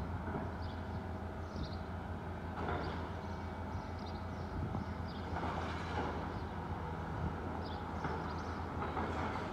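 Volvo tracked excavator's diesel engine running steadily while it demolishes a brick building, with several rushes of crunching and falling rubble, about three seconds in, around six seconds, and near the end.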